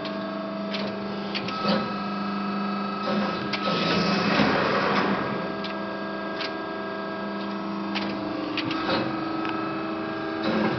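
Amada Promecam HFBO hydraulic CNC press brake running: a steady machine hum made of several tones that change partway through, with scattered clicks.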